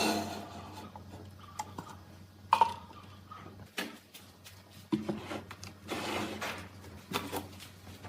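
Scattered knocks, clicks and short clatters of objects being handled and set down, over a faint steady low hum.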